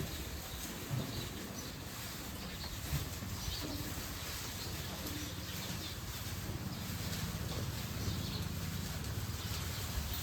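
Farmyard ambience: faint, scattered bird chirps over a steady low hum, with a couple of soft knocks.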